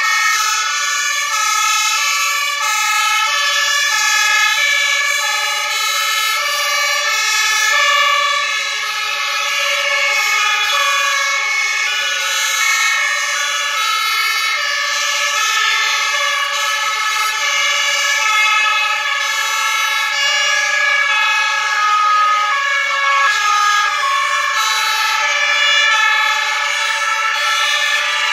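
Several German fire-engine two-tone sirens (Martinshorn) sounding at once from a passing convoy, their alternating high-low tones overlapping out of step in a continuous jumble.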